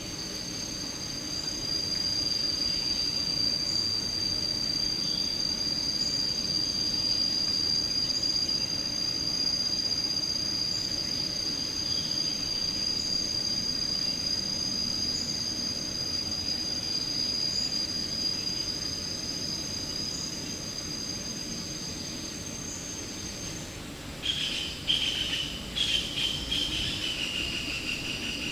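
Insects calling in a steady, high, unbroken drone of two tones, which stops about 23 seconds in. A lower insect call, pulsing and with a few sharp clicks, takes over near the end. A low rumbling background runs underneath.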